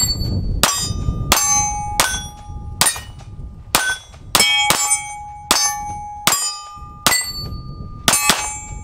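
Grand Power Q100 9mm pistol firing about a dozen shots of Wolf 115-grain steel-case ammunition at an uneven pace, the last two in quick succession. Most shots are followed by the ringing of a struck steel plate target.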